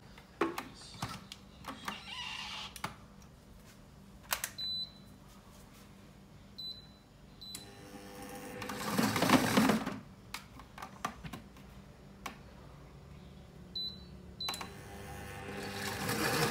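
Clicks and knocks of a glass blender jar and its plastic lid being handled, with a few short high beeps between them. Near the end the blender motor starts and its whirring rises as it begins chopping the filling.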